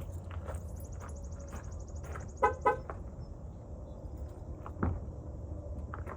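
Diesel engine idling with a steady low rumble, and two quick horn toots about two and a half seconds in.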